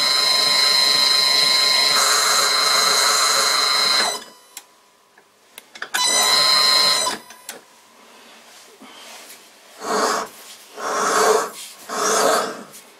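Old metal lathe boring out the inside of a ring held in its chuck: a steady cutting noise with a high whistling tone. It stops about four seconds in, comes back briefly around six seconds, and a few short noises follow near the end.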